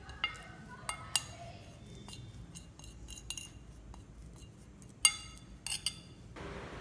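A spoon stirring a spice-paste marinade in a bowl, clinking against the bowl's side: a few ringing clinks near the start, fainter taps in the middle and the loudest clinks about five seconds in.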